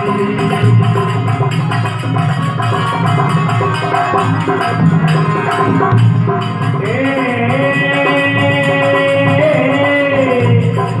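Instrumental passage between sung lines of a Rajasthani Bishnoi bhajan: drums keep a steady beat, and about seven seconds in a long melodic note comes in and is held for a few seconds.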